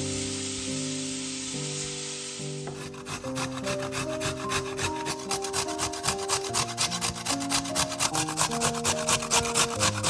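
Chopped onion sizzling in a frying pan as a wooden spatula stirs it, then, about three seconds in, a carrot grated on a metal cone grater: rapid rasping strokes, about three a second, growing louder toward the end. Background music throughout.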